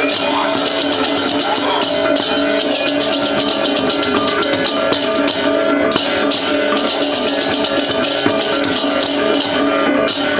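Loud, fast percussion-led music: dense rapid strikes over held ringing tones.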